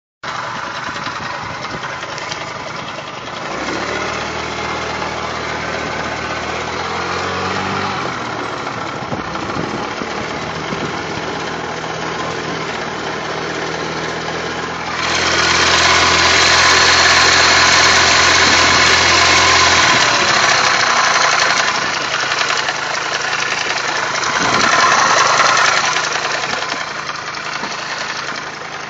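Racer Lupus motorcycle engine running with a knock, sounding like a tractor. It gets louder for several seconds past the middle and swells briefly again near the end.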